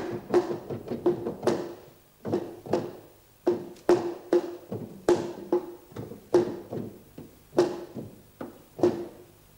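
African drum struck with a stick, playing an improvised rhythm in 6/8: short strikes with a ringing note, quick at first and then in looser, uneven groups.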